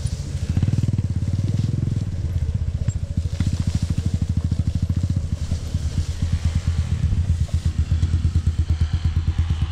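Dirt bike engine running at low revs with an even, pulsing beat as the bike creeps up a steep grassy track. It is a little fuller for a second or so near the start, then settles.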